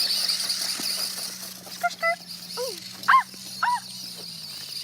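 Toy RC car's electric motor running with a steady high whine and a faint low hum. Four short, high yelps that fall in pitch cut in over it, spread through the middle of the stretch.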